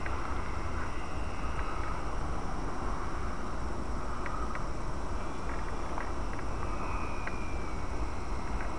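Faint high whine of a distant radio-controlled Super Cub LP model plane's brushed electric motor, coming and going, over a steady low rumble of wind on the microphone and a few light clicks.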